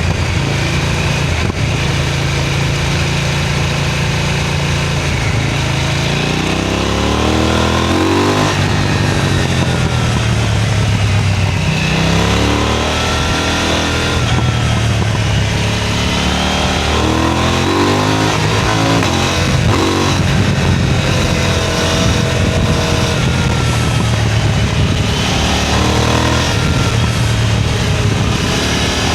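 KTM 990 Duke motorcycle engine and exhaust under hard riding: a steady run for the first several seconds, then the revs climbing and dropping again several times as the throttle is opened and closed.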